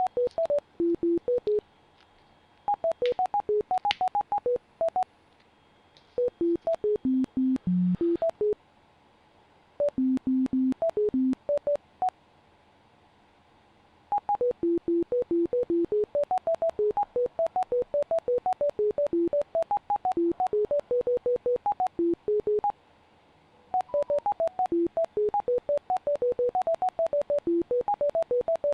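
Bioresonance NLS software sounding rapid runs of short electronic beeps while its metatherapy treatment runs. The beeps jump between low and high pitches, several a second, in bursts separated by pauses of a second or two.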